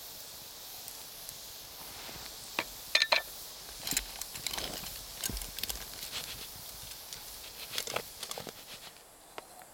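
Metal chopsticks clicking, tapping and scraping on a frying pan as vegetables are stirred over a campfire, a few strikes ringing briefly about three seconds in. Under it is a steady sizzling hiss that drops away near the end.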